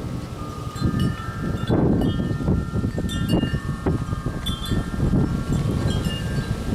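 Metal wind chimes ringing at several pitches, struck again and again by gusts, with wind buffeting the microphone.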